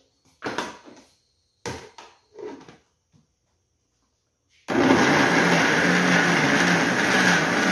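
A few light knocks, then a Mondial countertop blender starts about two thirds of the way in and runs loud and steady, chopping raw pumpkin chunks with eggs and oil.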